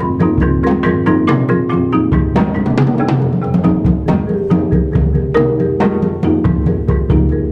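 Percussion ensemble playing: several marimbas and a vibraphone in fast, evenly pulsed mallet patterns over low bass notes, with drums and cymbals.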